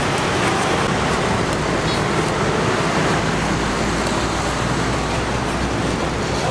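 Steady street traffic noise, with a low engine rumble growing stronger about halfway through.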